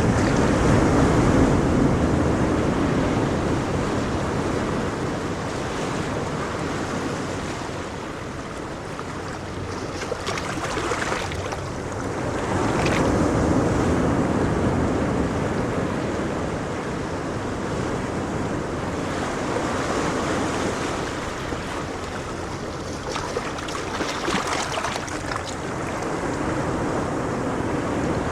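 Ocean waves breaking and washing up a beach, in slow surges every several seconds with a fizzing hiss as the water runs back.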